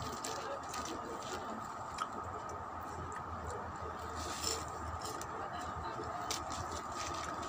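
Clear plastic bag crinkling and crisp chicharon pieces rustling as a hand picks through them, a run of small irregular crackles with a louder burst about halfway through, over a faint steady hum.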